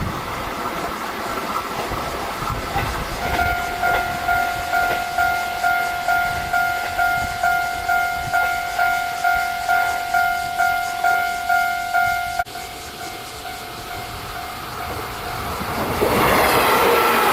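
Railway level-crossing warning alarm ringing about twice a second over the rumble of a train. The alarm cuts off abruptly about twelve seconds in, and near the end the noise of a train swells loudly.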